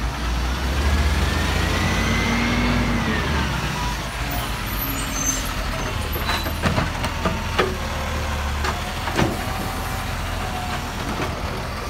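Side-loading garbage truck with its diesel engine running, a whine rising and then falling over the first three seconds. About halfway through comes a run of sharp clanks and knocks as the automated arm grabs, lifts and empties a wheelie bin.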